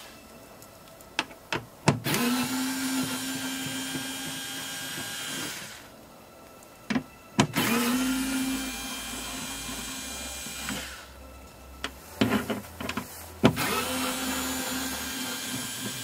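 Cordless drill-driver with a 10 mm socket spinning out door-panel bolts: three runs of a steady motor whine, each about three seconds long, with sharp clicks between the runs.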